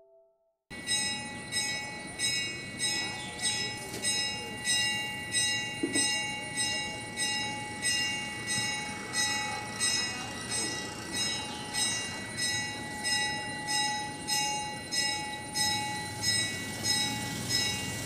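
A bell struck over and over in an even rhythm, about once every three-quarters of a second, its high ringing tones carrying on between strikes. It starts just under a second in.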